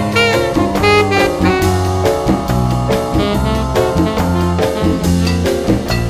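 Jazz background music: a saxophone melody with bending notes over a drum kit keeping a steady beat.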